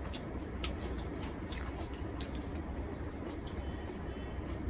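Small-fish curry being tipped from a small ceramic plate onto a dinner plate of rice: a few faint, light ceramic taps and the soft slop of the wet food, over a steady low hum.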